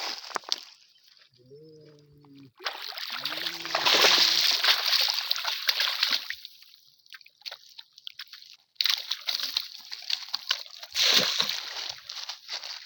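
Water splashing and sloshing in irregular bursts, loudest from about three to six seconds in and again from about nine seconds on.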